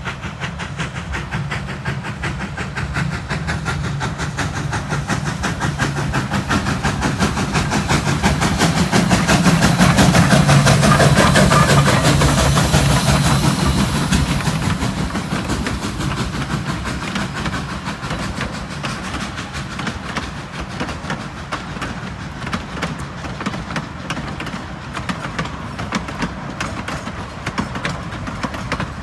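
Durango & Silverton narrow-gauge steam train approaching and passing close by, loudest about ten to twelve seconds in as the locomotive goes past. Its coaches then roll by with a rhythmic clickety-clack that slowly fades.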